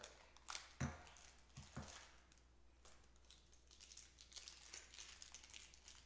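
Small plastic packaging bag crinkling and rustling as it is opened, with a few sharp clicks and one low knock in the first two seconds.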